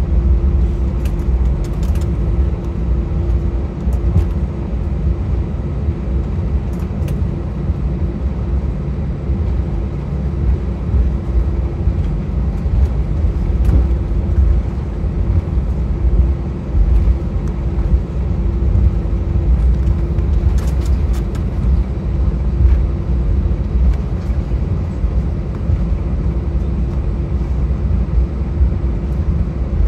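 Airbus A319 cabin noise while taxiing: a steady low rumble of the jet engines at idle with a steady hum over it, and a few faint rattling clicks.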